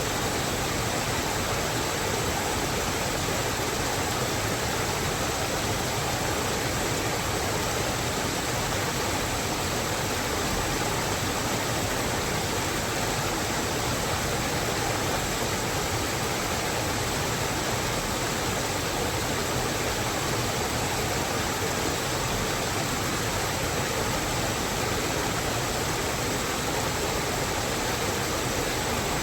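Steady, even rush of water, unbroken and unchanging throughout.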